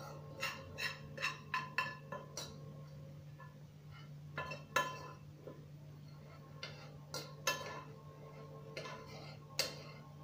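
A metal spoon scraping and clinking against the inside of a metal cooking pot as cooked green grams are scooped out. It is a run of quick, ringing clinks in the first couple of seconds, then more scattered scrapes and clinks.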